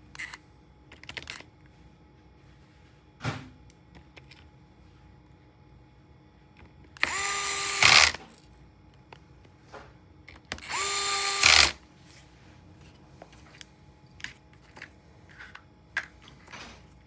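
Electric screwdriver driving small laptop screws: two short runs of about a second each, each rising briefly in pitch as the motor spins up, holding steady, then ending in a brief louder burst. Small clicks of parts being handled come between the runs.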